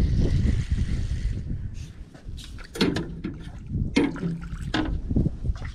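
Wind buffeting the microphone, then a string of sharp knocks and thumps on the airboat's deck as a small sheepshead is landed.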